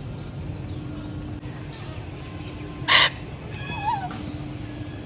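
A bird gives one short, loud, harsh screech about three seconds in, followed by a few faint whistled chirps.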